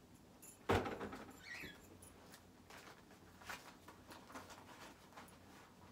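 A dog moving about on a bed: one thump about a second in, then faint rustling and light scratching, with a short high whine or squeak.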